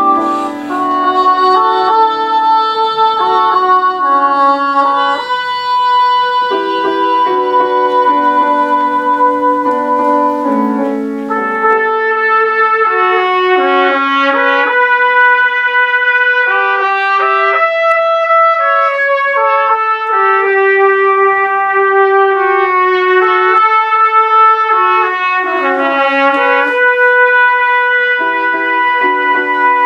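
Two trumpets playing a duet in harmony, in notes held about a second each, accompanied by a grand piano.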